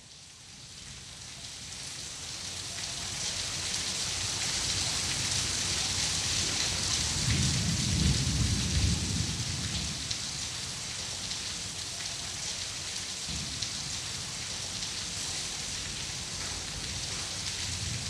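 Heavy rain pouring steadily, fading in over the first few seconds. A low rumble swells up about seven seconds in and is the loudest part, with a weaker one a few seconds later.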